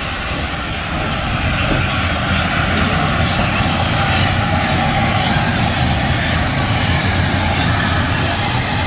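GWR Manor class 4-6-0 steam locomotive No. 7828 Odney Manor running slowly into the station past the microphone: a steady rumble and hiss that grows louder over the first second or so, then holds.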